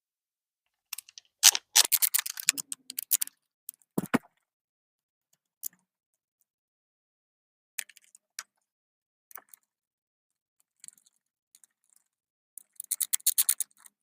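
Clicks and rattles of the parts of a keyless entry door lock being handled as it is taken apart. There are quick runs of clicks about a second in and again near the end, a single knock about four seconds in, and a few lone clicks in between.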